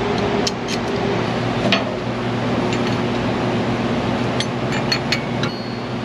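Steady mechanical hum, with a few light metallic clicks scattered through as a screw-type caliper piston tool is worked to wind a rear brake caliper piston back in.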